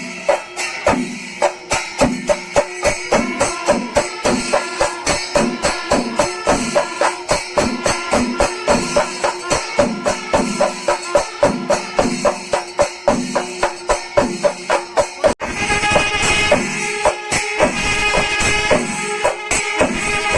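Kerala chenda melam: chenda drums beating in a steady pulse of about two strong strokes a second, with ilathalam cymbals clashing over them. About fifteen seconds in the sound breaks off abruptly into a denser, busier passage.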